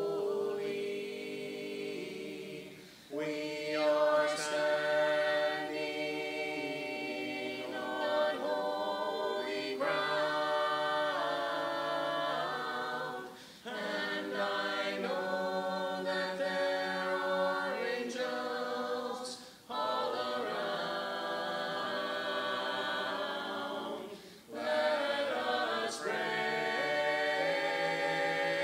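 Several voices singing a slow hymn without instruments, in harmony. The phrases are held, with short breaks for breath between them.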